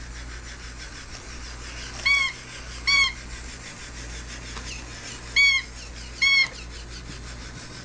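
Electronic toy cat giving short mechanical meows: four brief calls that rise and fall in pitch, in two pairs about a second apart.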